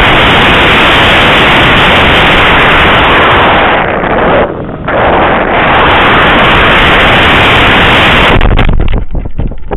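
Loud, constant rushing noise of a model rocket's flight from a camera riding on the rocket: motor exhaust and air rushing past, overloading the microphone. It dips briefly about four and a half seconds in and breaks into uneven gusts near the end.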